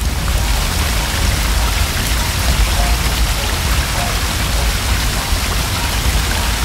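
Cartoon fire-hose sound effect: a steady, loud hiss of spraying water.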